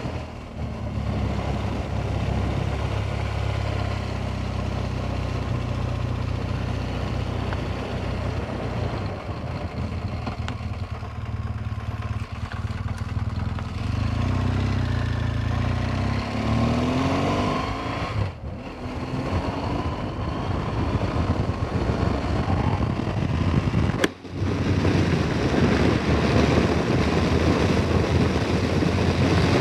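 BMW R1200GS motorcycle's flat-twin boxer engine running under way, heard from on board the bike. The engine note rises about halfway through, and the sound drops out briefly twice in the second half.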